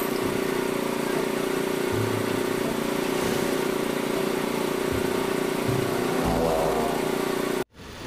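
A steady motor drone, even in pitch, with a few dull knocks from parts being handled; it cuts off suddenly near the end.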